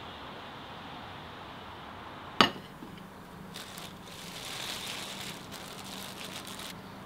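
A single sharp knock about two and a half seconds in, then a plastic bread bag crinkling as hands handle it, over a faint steady low hum.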